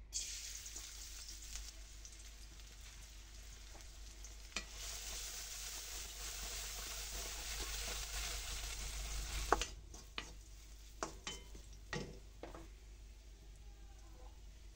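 Sliced onions hitting hot mustard oil in an aluminium kadai and sizzling steadily as they are stirred with a wooden spatula, the sizzle growing over the first nine seconds or so. It then drops off suddenly, leaving a few separate knocks and scrapes of the spatula on the pan.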